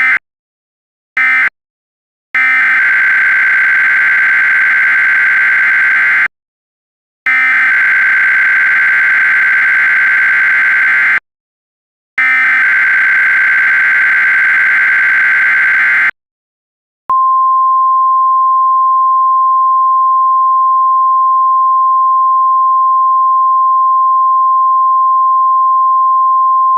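Emergency Alert System SAME data bursts: a short burst right at the start, then three harsh screeching bursts of about four seconds each with brief gaps. About 17 seconds in these give way to a steady 1050 Hz weather-radio warning alarm tone, held for about ten seconds.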